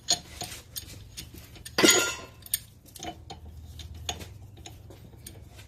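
Light metallic clicks and ticks of a brake caliper piston wind-back tool being turned and pressed against a rear brake caliper piston to push it back in, with one louder metal scrape about two seconds in.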